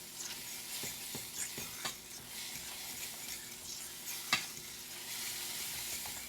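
Eggs frying with diced bell peppers and onion in a pan, a steady sizzle, with a few taps and scrapes of a utensil stirring them.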